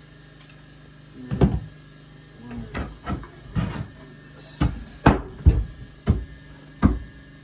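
Dull wooden knocks as a 2x4 upright is tapped and shifted by hand into place against a wooden counter frame. About ten irregular knocks start about a second in.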